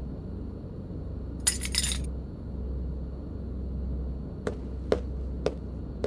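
Cartoon sound effect of a pair of gold metal inhibitor rings clinking as they are picked up: a short cluster of bright clinks about a second and a half in, over a low steady hum. A few soft taps follow near the end.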